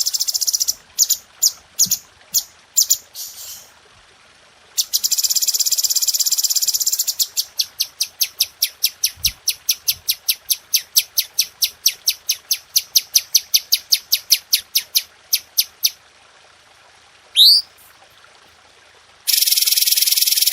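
Cucak cungko songbird singing rapid, sharp 'tembakan' phrases. It gives dense high trills, then a long run of short, clipped notes at about four a second, then a couple of quick rising whistled notes, and another dense trill near the end.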